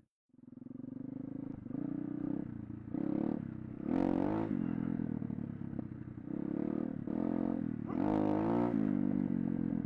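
Small pit bike's single-cylinder engine revving hard in repeated surges, its pitch rising and falling as the throttle is opened and closed on a wheelie attempt. The sound drops out briefly right at the start.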